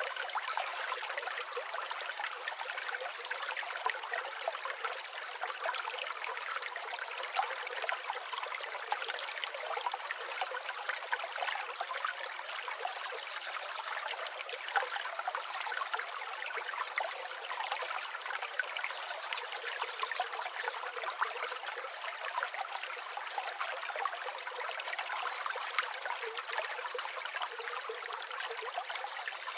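Flowing river water running steadily over stones, a continuous splashing wash with no deep rumble.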